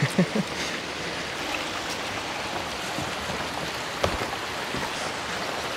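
Creek water running over rocks, a steady rushing, with a single sharp knock about four seconds in.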